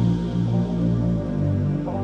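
Liquid drum and bass music, with deep held bass notes that change pitch every half second or so.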